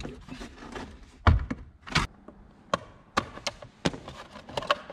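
A series of sharp plastic clicks and knocks, about eight over a few seconds, from hands working the car's interior trim panels and fittings in the cabin.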